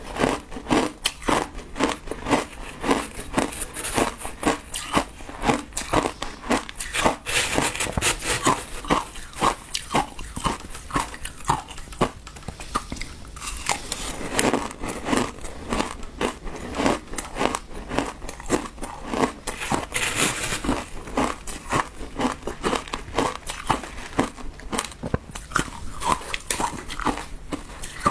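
Close-miked crunching and chewing of mouthfuls of shaved ice with passion fruit pulp, a continuous run of crisp crunches several a second.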